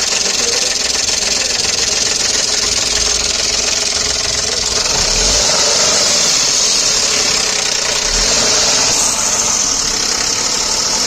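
Car engine idling with a rapid, steady rattle (a khad-khad-khad clatter) from a slack timing chain. The mechanic puts it down to a failed timing-chain adjuster (tensioner) and plans to replace the whole timing chain.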